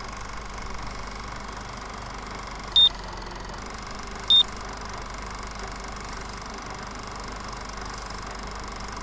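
Two short, high-pitched countdown-leader beeps, about a second and a half apart, over a steady hiss with a low hum.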